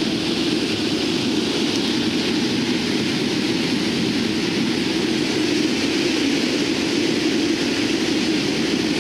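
Lockheed C-130T Hercules's four Allison T56 turboprop engines and propellers, a steady loud drone heard inside the cargo cabin, strongest in a low hum.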